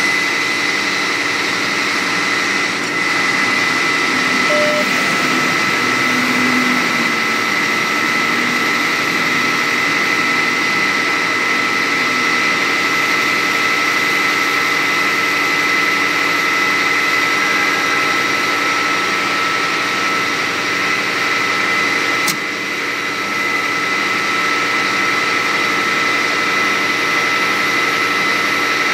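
A fire engine's pump running steadily to supply the firefighters' hoses: a constant engine drone with a steady high whine. A single sharp click about two-thirds of the way through.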